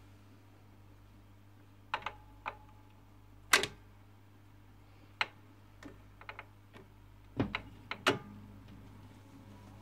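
Garrard autochanger in a Bush radiogram cycling: a string of mechanical clicks and clunks as a 45 rpm record drops and the tonearm swings over and sets down, the loudest clunks about a third of the way in and near the end, over a steady low hum.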